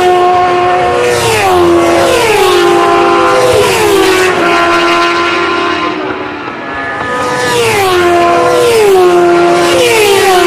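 Over-600 cc racing motorcycles pass one after another at high speed, about six of them. Each engine note drops sharply in pitch as the bike goes by, with a short lull about six seconds in before the next bikes come through.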